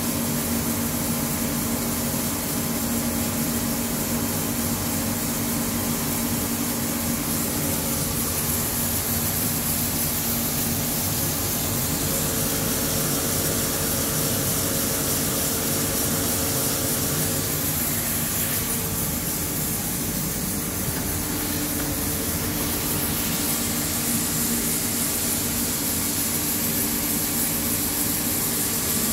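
HüllerHille NBH 170 CNC machining center running a rough boring cut at about 200 rpm spindle speed: a steady machine drone with a constant hum, under a hiss of coolant spraying inside the guarding.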